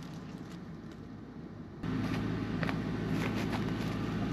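A steady low engine-like hum starts abruptly about two seconds in, with a few faint clicks over it. Before that there is only quiet background.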